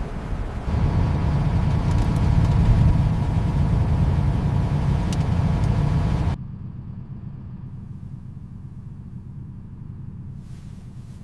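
Heavy truck engine running with a steady low rumble. About six seconds in it cuts off abruptly to a quieter, steady low hum.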